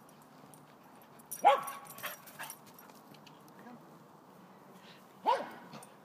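Dogs playing: one dog gives a short bark about one and a half seconds in, followed by a few fainter yips, and another short bark near the end.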